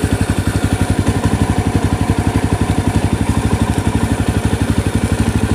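Yezdi Roadster's 334 cc single-cylinder engine idling steadily, an even fast pulse of about a dozen beats a second.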